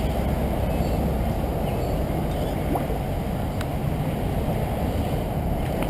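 Steady low rushing noise with a faint click about three and a half seconds in.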